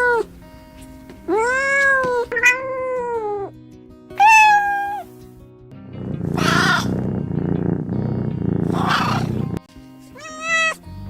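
Domestic cats meowing: four separate meows, each rising and then falling in pitch, with a harsher, noisier sound lasting about three and a half seconds in the middle. Background music plays underneath.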